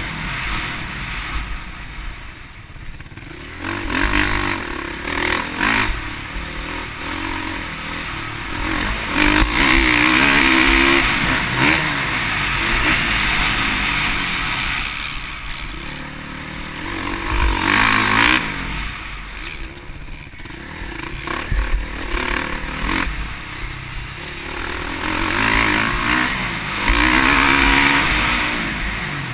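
Motocross bike engine heard from on board, revving up and down as the throttle is opened and closed. Its pitch climbs and falls repeatedly, with the hardest pulls about a third of the way in, just past the middle, and near the end.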